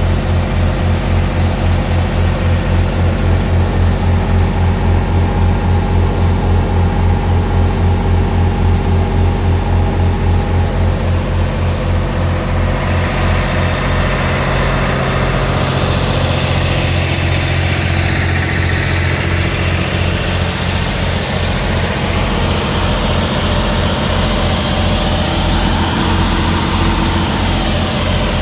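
Miller Big Blue 600X welding generator's diesel engine running steadily, with an even low throb.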